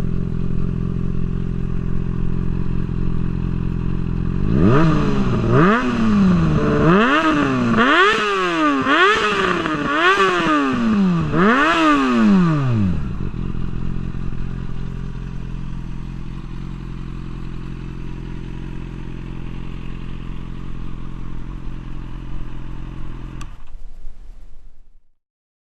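Yamaha FZ6 S2 600 cc inline-four motorcycle engine with an aftermarket SHARON Racing System exhaust. It idles steadily, then is revved in about seven quick throttle blips that rise and fall in pitch. It settles back to idle and is switched off near the end.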